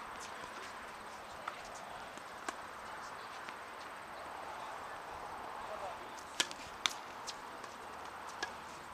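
Sharp knocks of a tennis ball being struck and bouncing, the two loudest about half a second apart around six and a half seconds in, with fainter knocks scattered through, over a steady outdoor hiss.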